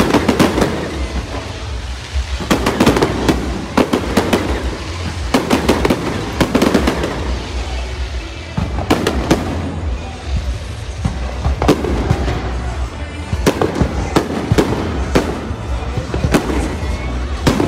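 Aerial fireworks bursting overhead: repeated bangs and crackles that come in clusters every second or two.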